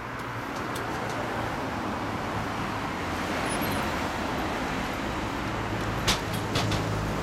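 Yamaha Drag Star 250's air-cooled V-twin idling steadily through slash-cut mufflers. Two sharp clicks come near the end.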